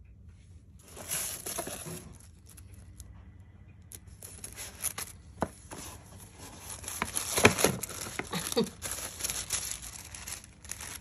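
Tissue paper crinkling and tearing as a wrapped sunglasses box is unwrapped and handled. A short burst of rustling comes about a second in, and denser rustling and crackling with small clicks from about four seconds on.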